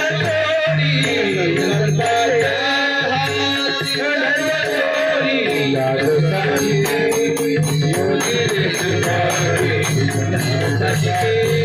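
Marathi devotional kirtan music: a voice singing a gliding melody over a steady beat of a low drum and clashing hand cymbals.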